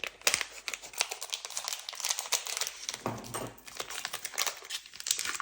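Plastic wrapping of a pack of modelling paste crinkling and rustling as it is handled and opened, with many small irregular crackles.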